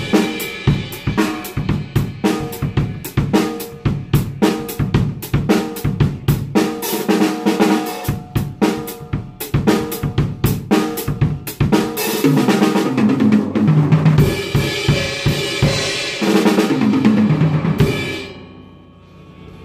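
A drum kit being played: fast snare, bass drum and tom hits in a busy groove, with crash cymbals coming in about two-thirds of the way through. The playing stops shortly before the end and the kit rings out.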